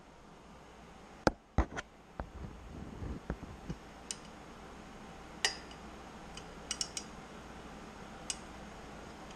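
Sharp metallic clicks and clinks of a hand tool working on the engine's steel exhaust pipes and their fittings. There is a cluster of clinks in the first few seconds, then single light ticks every second or two.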